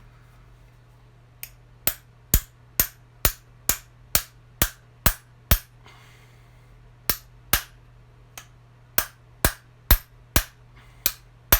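Hammer tapping a socket to drive a replacement roller-skate bearing into place on the tile saw: about twenty sharp metallic blows, roughly two a second, in two runs with a short pause about six seconds in.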